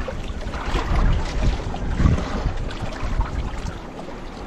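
Wind buffeting the microphone, with water washing and slapping against the hull of a small outrigger boat, swelling in gusts about a second and two seconds in.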